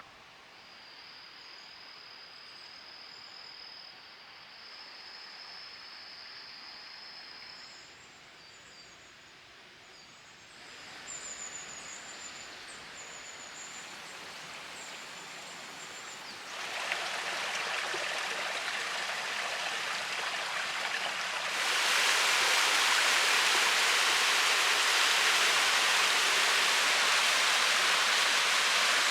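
Mountain waterfall and stream rushing steadily. The noise jumps louder in three abrupt steps, ending as a full roar of falling water.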